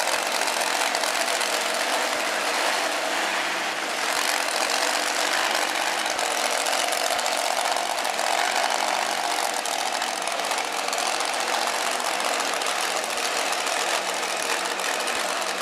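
Exposed front-mounted engine of the Inter Techno Predator pulling vehicle running steadily at low speed as the machine rolls slowly across the arena.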